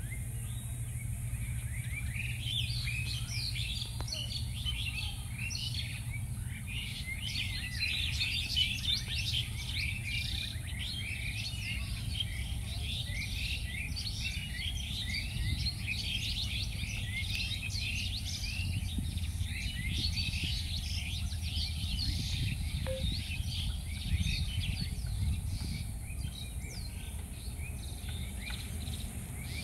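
A chorus of small birds chirping and twittering densely and continuously, thickening about two seconds in, over a low steady rumble.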